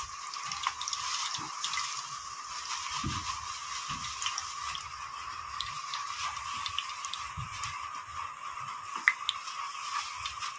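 A stick stirring flour into water in a small metal camping pot: wet squishing and sloshing, with occasional light clicks of the stick against the pot, over a steady hiss.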